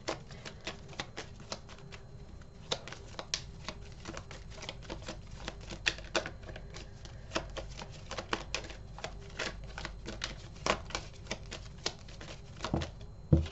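Tarot cards being handled and leafed through in the hands, a quick irregular run of light card clicks and snaps, with a soft thump near the end.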